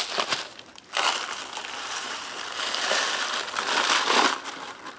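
Foil-laminate ration pouch crinkling as it is scrunched, then a steady rustling hiss for about three seconds as dry rice, vegetables and dehydrated chicken pour out of the pouch into a collapsible mug.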